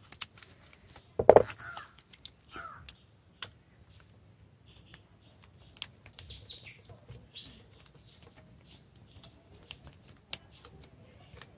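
Scissors snipping open a small plastic shampoo sachet, then the sachet crinkling as it is squeezed into a plastic bottle, with scattered light clicks and rustles. One loud short sound stands out about a second in.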